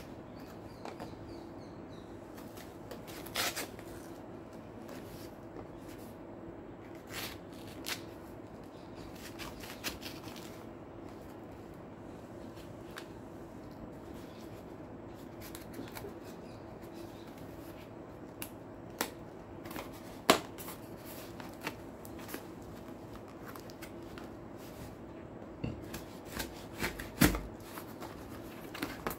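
A cardboard shipping box being slit open with a folding pocketknife and handled: scattered scrapes, rustles and sharp clicks, the sharpest about two-thirds of the way through and another near the end. A steady low hum runs underneath.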